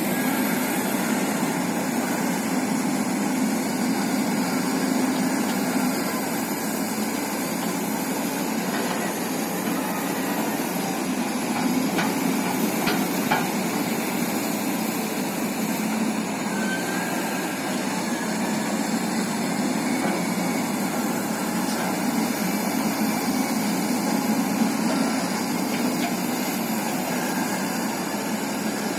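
Heavy diesel engines of a hydraulic excavator and dump truck running steadily under load, with a few faint knocks near the middle as material is loaded.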